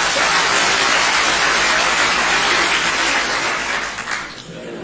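Large audience laughing loudly together, a dense wash of many voices that drops away about four seconds in.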